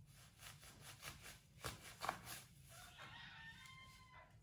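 Faint clicks of a kitchen knife cutting through a lemon onto a plastic cutting board, the two loudest about a second apart. Near the end comes a faint drawn-out call of about a second in the background, holding several steady pitches.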